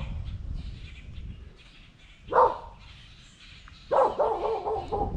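A dog barking: one bark about two seconds in, then a quick run of barks near the end.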